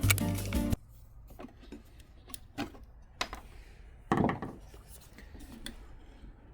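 Handling noises of wood and hard parts being moved: scattered light clicks and knocks, with one heavier knock or scrape about four seconds in. A stretch of background music cuts off just under a second in.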